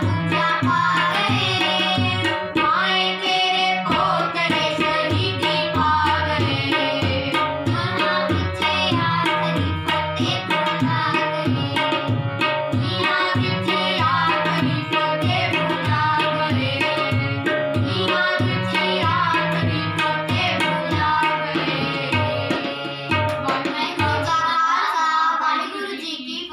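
Punjabi devotional song sung to harmonium and tabla: steady tabla strokes under sustained harmonium chords and a singing voice. The tabla stops a couple of seconds before the end as the song closes.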